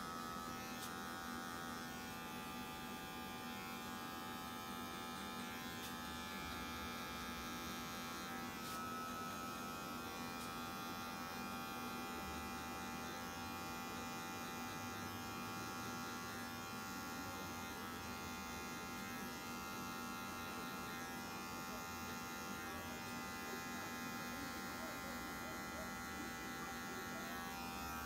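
Electric hair clippers running with a steady buzz as the blades fade short hair on the side and back of a head.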